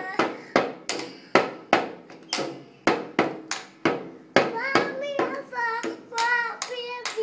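Toddler's toy drum beaten with a stick in a steady rhythm, about two beats a second, with a small child singing along in bursts over the later beats.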